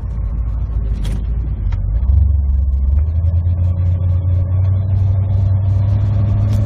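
Truck engine and road noise heard from inside the cab while driving, a steady low drone that grows louder about two seconds in.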